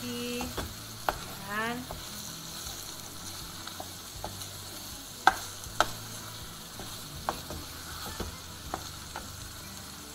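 Wooden spatula stirring egg, pork and tomato in a frying pan over a steady sizzle, with scattered knocks of the spatula against the pan, the two loudest a little past halfway.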